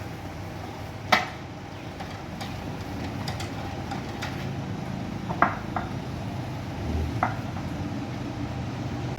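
Scattered sharp metallic clinks and knocks of spanners and a tommy bar working on the car's steering rack mounting bolts during tightening, the loudest about a second in. A low steady hum runs underneath.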